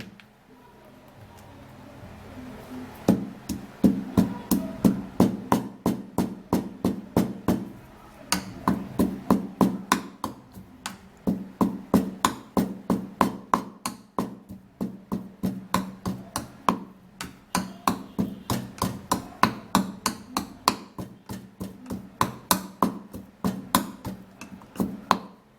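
Pestle pounding dry moringa seeds in a mortar: a long run of sharp knocks, about two to three a second, starting about three seconds in.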